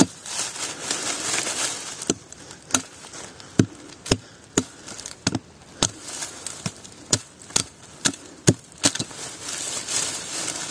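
Red-handled azuela (hatchet-adze) chopping suckers off the base of an olive trunk: a quick run of sharp strikes into the wood, about two a second, done as desuckering.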